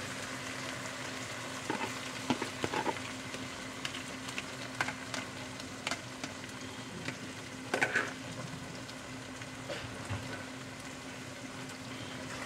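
Pot of okra soup base sizzling on the stove as chopped okra is tipped in, with scattered light clicks and taps of the okra and a wooden spoon against the pot, over a steady low hum.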